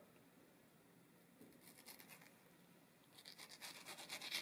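A knife slicing through soft mango flesh and scraping the cutting board: a quick run of short strokes that starts about three seconds in and grows louder.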